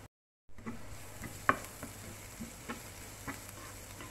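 Spatula stirring and scraping sautéing onions, ginger and garlic in a non-stick frying pan, over a light sizzle, with strokes about every half second. The sound cuts out completely for a moment just after the start.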